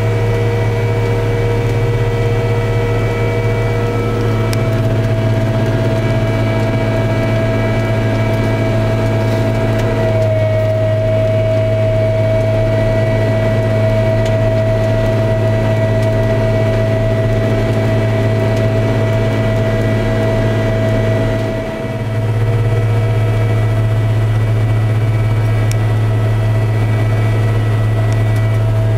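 Miller Nitro self-propelled sprayer's diesel engine running steadily under way, heard from inside the cab, a deep steady drone with a steady high whine over it. The drone dips briefly about three quarters of the way in.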